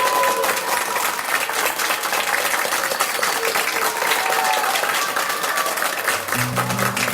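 Audience applauding. About six seconds in, low sustained instrument notes begin as the music starts.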